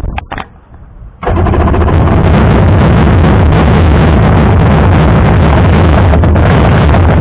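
Polaris Genesis 1200i jet ski's two-stroke engine kicks in about a second in and runs loud and rough with rapid popping for about six seconds, then stops abruptly. The owner takes the backfiring for fuel not burning off.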